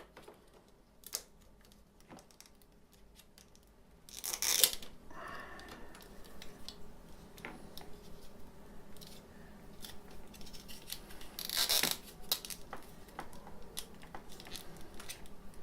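Hands and tools working on the fridge's plastic casing during disassembly: scattered small clicks and rattles, with two short rasping, scraping bursts, about four and about twelve seconds in.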